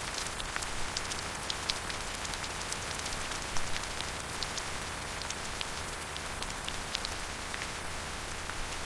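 Steady rain, an even hiss with many separate drops tapping through it.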